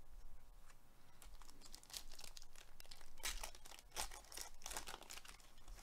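Foil wrapper of a Panini Select baseball card pack being torn open and crinkled by gloved hands, a faint irregular crackling that is densest in the second half.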